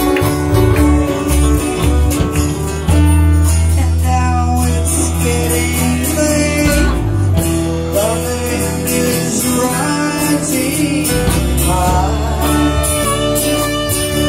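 Live band playing a country-style song: acoustic and electric guitars over bass and drums, with singing.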